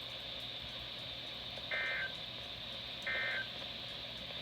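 NOAA Weather Radio SAME end-of-message data signal: two short, buzzy digital tone bursts about 1.4 s apart, with a third starting right at the end, over steady radio hiss. The bursts mark the end of the warning broadcast.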